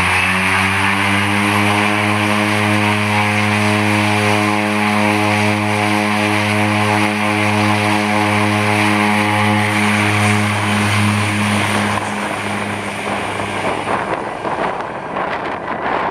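de Havilland Canada DHC-6 Twin Otter's Pratt & Whitney PT6A turboprop engines running close by: a loud, steady propeller drone that rises slightly in pitch about a second in. It fades out about twelve seconds in, giving way to wind buffeting the microphone near the end.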